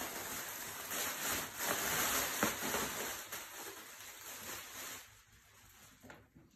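Plastic air-cushion packaging rustling and crinkling as it is pulled out of a cardboard box, dying down about five seconds in.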